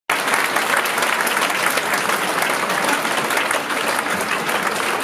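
Theatre audience applauding: a steady, dense patter of many hands clapping.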